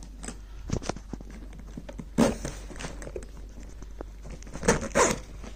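Hands handling a hard-shell backpack, its nylon and shell taking scattered taps and knocks. The loudest knock comes about two seconds in, and a pair of knocks comes near the end.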